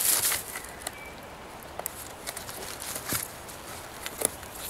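Hands lashing three sticks together with bank line over dry leaves: rustling and scraping of cord, wood and leaves, with a couple of sharp clicks about three and four seconds in.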